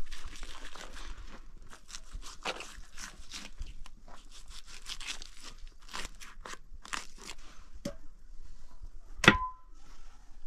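Irregular crunching and crackling, with one much louder sharp knock about nine seconds in that rings briefly.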